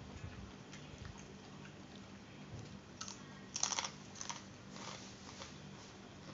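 A man chewing crunchy food, then slurping sips from an enamel mug, with the loudest slurp just past halfway and a few smaller sips after it.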